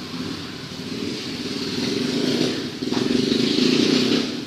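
A vehicle engine running steadily, growing louder about three seconds in.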